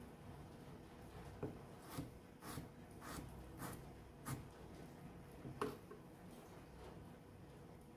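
Kitchen knife chopping a peeled potato into cubes on a wooden cutting board: faint knocks of the blade on the wood, about one every half second, the loudest a little past the middle.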